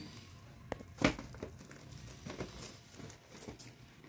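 Gift packaging crinkling and rustling irregularly as it is unwrapped by hand, with the loudest crackle about a second in.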